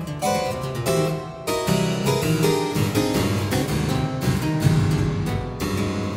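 Harpsichord playing a fast, dense passage of plucked notes, with the bass register growing fuller and busier about a second and a half in.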